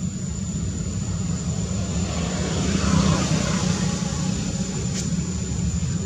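A passing engine: a steady low rumble that swells to its loudest about three seconds in and then eases off, with a sharp click about five seconds in.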